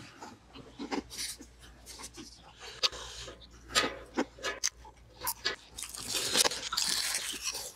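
Close-up eating sounds: chewing and crunching of food, with wet mouth smacks and sharp clicks at irregular intervals. A louder, noisier stretch comes about six seconds in.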